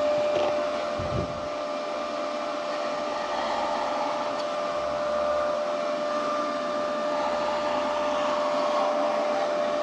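Steady hum of an electric fan or motor running, with a constant whine and a hiss, and a couple of light knocks about a second in.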